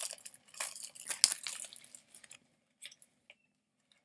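A paper checklist sheet rustling and crinkling as it is unfolded and handled. The rustling is busiest over the first two seconds, with one sharp snap a little over a second in, then only a few faint ticks.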